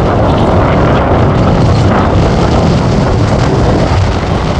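Wind buffeting the microphone: a loud, steady rushing rumble with no engine tone in it.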